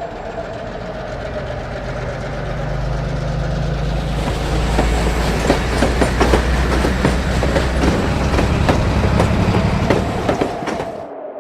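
Pennsylvania Railroad EMD E8/E9 diesel locomotive passing: its diesel engines drone steadily and grow louder. From about four seconds in, wheels click rapidly over rail joints, and the sound drops away near the end.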